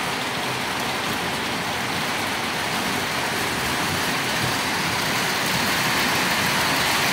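Model train running on the layout's track: a steady rolling whir and rumble that grows a little louder near the end.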